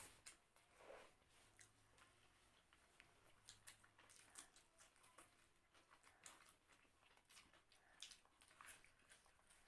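Faint sounds of people eating fried rice and egg curry: soft chewing with many small wet clicks and smacks.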